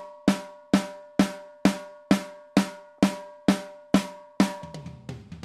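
Close-miked snare drum track from a metal multitrack playing back on its own. Steady hard hits come about two a second, each ringing with a pitched overtone. Near the end, lighter and quicker hits come in, with toms ringing low underneath as bleed.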